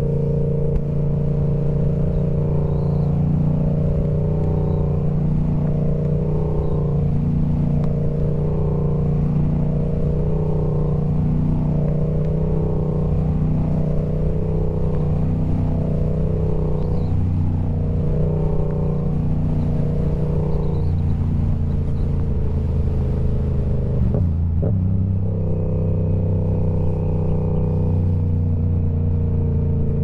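Yamaha R7's parallel-twin engine running at a steady speed through a TOCE full-system exhaust. There is a slow, even pulsing in the exhaust note for much of the time, and a brief change in the sound about two-thirds of the way through.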